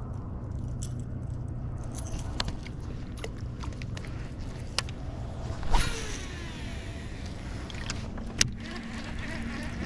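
A vehicle engine idling steadily, with scattered light clicks and two sharper knocks, one about six seconds in and one about eight and a half seconds in.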